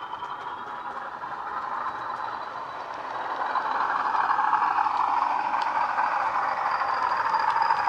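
Model Class 40 diesel locomotive's DCC sound decoder playing the English Electric diesel engine running, through a pair of small 27mm speakers. It grows louder about three seconds in as the model approaches, with a thin high whistle above the engine note.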